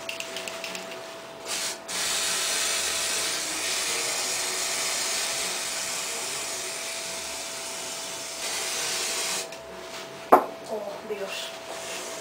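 Aerosol spray hissing onto the ear before a piercing: a short puff, then one steady spray of about seven seconds that cuts off sharply. The spray stings and is said to have hurt more than anything else.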